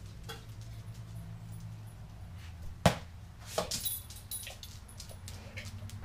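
A dog's metal collar tags jingling and clicking as it walks across a concrete floor, over a low steady hum. There is one sharp click about halfway through, the loudest sound, and then a short run of jingles.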